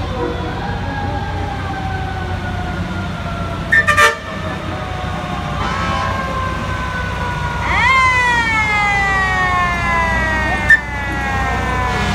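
Fire truck siren sliding slowly down in pitch, then winding up sharply about eight seconds in and coasting down again, over the steady low rumble of the passing trucks' engines. Two brief loud blasts cut in, one about four seconds in and one shortly before the end.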